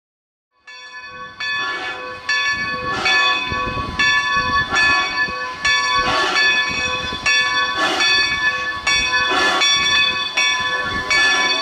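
Steam locomotive's bell ringing steadily, struck a little more than once a second, as the engine moves slowly, with the locomotive's exhaust and hiss beneath. The sound starts about half a second in.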